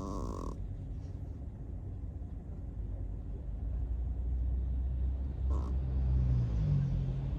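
Chihuahua snoring in its sleep: a low rumbling snore that grows louder about halfway through, with a deeper droning note near the end.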